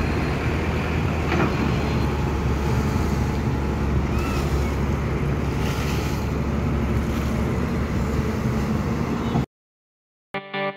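Caterpillar 320 hydraulic excavator digging in a water-filled pit, its diesel engine running steadily under load. The sound cuts off suddenly near the end, and music with a plucked guitar starts just after.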